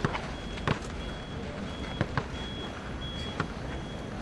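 A basketball thumping a few times at uneven intervals, sharp knocks over a steady outdoor background noise. A faint high beep sounds on and off throughout, like a vehicle's reversing alarm.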